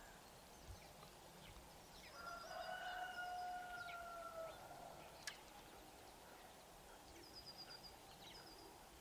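A rooster crowing once, faint: one drawn-out call starting about two seconds in, lasting about two seconds and falling slightly at the end. Small birds chirp in quick high trills around it and again near the end, and there is a single sharp click about midway.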